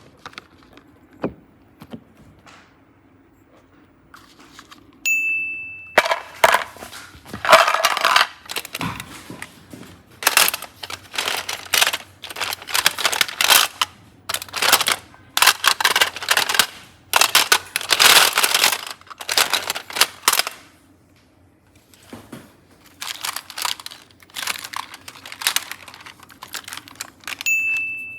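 Hands squishing and pressing slime in repeated crackly, squelching bursts, with a pause of about two seconds in the middle. A short high beep sounds about five seconds in and again near the end.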